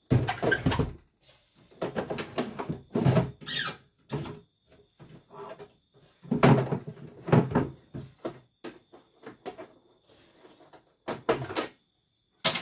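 Hard plastic knocks, clatters and scrapes as an embroidery unit is slid onto and fitted to the bed of a computerized embroidery machine. The sounds come in short irregular clusters, with a brief high-pitched squeak about three and a half seconds in and a sharp click at the end.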